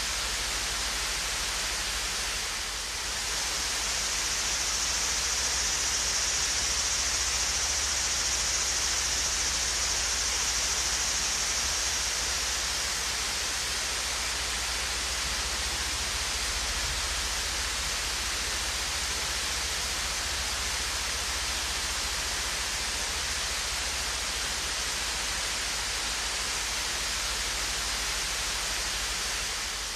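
Swayze Falls, a gentle waterfall, pouring steadily: a continuous, even rush of falling water with a bright hiss, dipping briefly about three seconds in.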